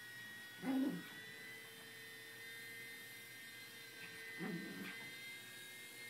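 A thin, steady electric whine from a remote-control flying-saucer toy, with two short, low vocal sounds from a pug puppy, about a second in and again about four and a half seconds in.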